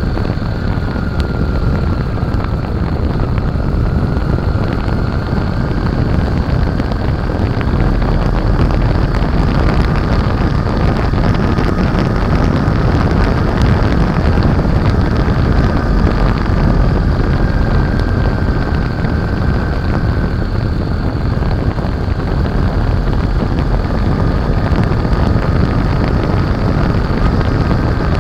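A 2007 Honda Shadow Aero 750 V-twin motorcycle being ridden at speed, its engine running under heavy wind rush on a bike-mounted microphone.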